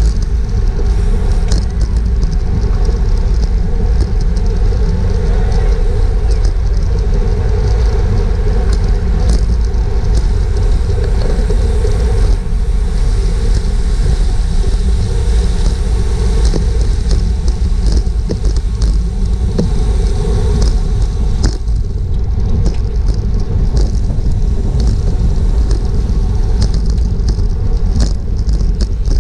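Wind rushing over a GoPro microphone on a road bike ridden at race speed: a loud, steady low rumble with scattered short clicks.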